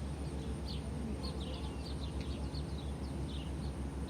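Small birds chirping repeatedly in short, high, falling notes, over a steady low rumble.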